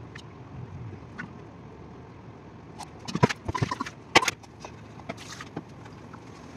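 Metal cookware clattering on a stove: a pan lifted and handled, with a quick cluster of sharp clanks and knocks about three to four seconds in, the loudest just past four seconds, then a few lighter taps.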